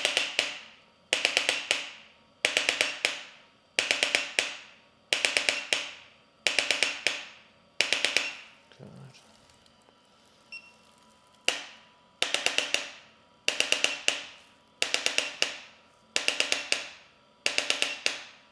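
Background music: a percussive beat of quick tapping strikes in tight clusters about every second and a third, each ringing away before the next, breaking off for about three seconds partway through.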